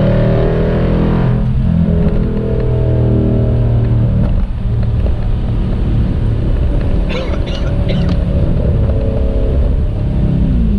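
Jeep Grand Cherokee SRT's V8 with an aftermarket Borla exhaust pulling steadily while driving, loud and droning. There is a brief drop about four seconds in, and the engine pitch falls near the end as it eases off.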